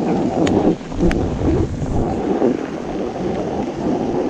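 Wind buffeting the camera microphone, a steady loud rumbling noise, with two light clicks about half a second and a second in.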